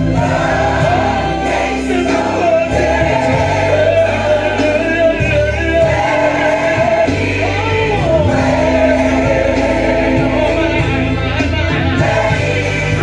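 Gospel worship song playing: choir and a male lead singing over a steady bass line.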